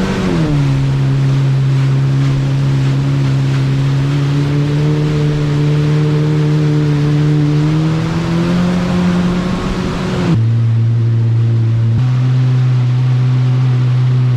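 Jet ski engine running at low speed, easing off just after the start and then holding a steady note with a slight rise midway. About ten seconds in the sound switches abruptly to a lower, duller steady engine note.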